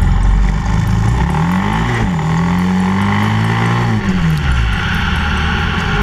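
Yamaha XT660X's single-cylinder engine accelerating: its pitch climbs, drops sharply at a gear change about two seconds in, climbs again, then falls away as the throttle closes around four seconds in. Wind and road noise rush steadily underneath.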